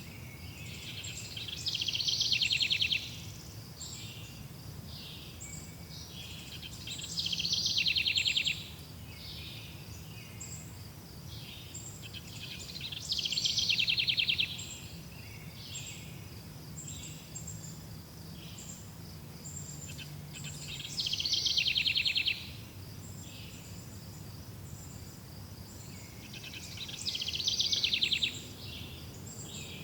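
Forest birdsong: one bird repeats a loud, rapid trilling phrase of about a second and a half five times, roughly every six seconds. Other birds give short high chirps in between, over a faint low steady rumble.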